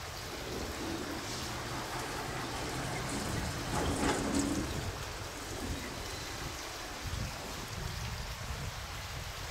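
Steady hiss with a fluttering low rumble, the sound of wind buffeting the microphone outdoors. A brief louder swell comes about four seconds in.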